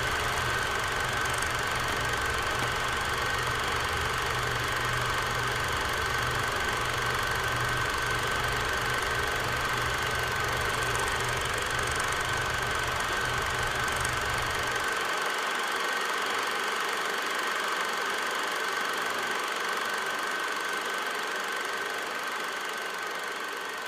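Steady mechanical running noise with a constant high-pitched whine over a hiss. A low rumble under it cuts out about fifteen seconds in.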